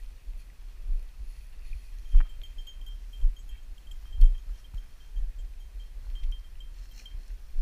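Walking footsteps through dry field grass and brush, picked up by a body-worn camera as dull low thuds about once a second. A faint, high-pitched, broken beeping runs behind them.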